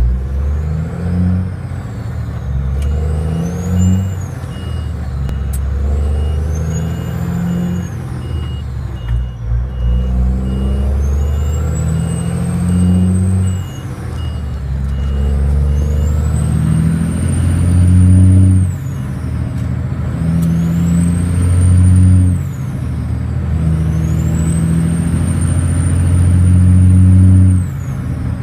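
Kenworth T904 truck's diesel engine pulling hard through the gears, heard from inside the cab. The engine note climbs in each gear and drops at each of about six shifts, with a high turbo whistle rising and falling along with it.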